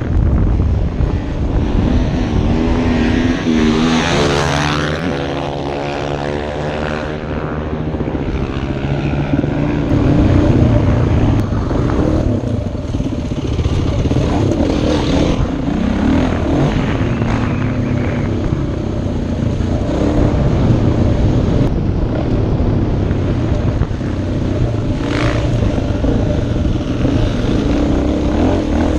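Dirt bike engine running under way, revving and climbing in pitch a few seconds in, then pulling steadily through the gears, with wind rushing over the helmet-mounted microphone.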